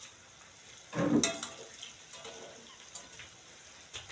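Hingcha-leaf and gram-flour fritters sizzling in hot oil in a small aluminium kadai, as they are turned with a metal spatula. The spatula knocks and scrapes against the pan, loudest about a second in, with a few lighter clicks after.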